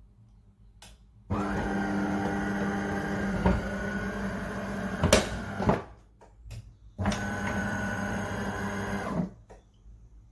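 De'Longhi Magnifica Start bean-to-cup coffee machine running in two steady mechanical hums, the first about four seconds long and the second about two seconds, each starting and stopping abruptly. A sharp click comes near the end of the first hum.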